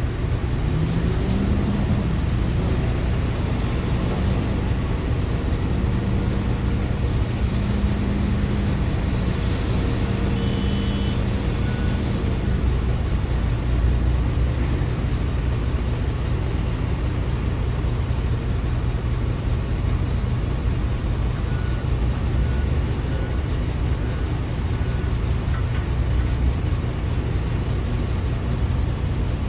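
Heavy diesel engines of quarry machinery running steadily with a low drone, the engine note rising briefly about a second in.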